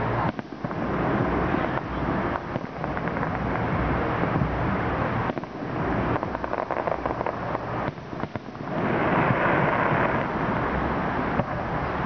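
Aerial fireworks bursting: a dense, continuous run of bangs and crackling, louder for a couple of seconds about nine seconds in.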